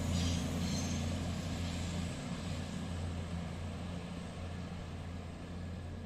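Underfloor diesel engines of a departing Voyager diesel multiple unit: a steady low drone that slowly fades as the train pulls away.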